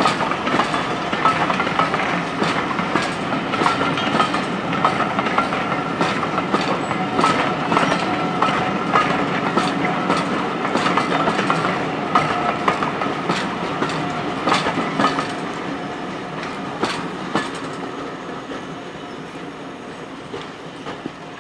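Heritage railway passenger coaches rolling past, their wheels clicking over rail joints in an irregular clatter. The sound fades over the last several seconds as the train draws away.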